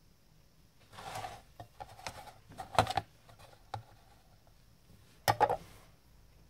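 A small stainless-steel jackknife handled and set on a scale for weighing: a brief rustle, then a run of light clicks and knocks, then a sharper double clatter near the end.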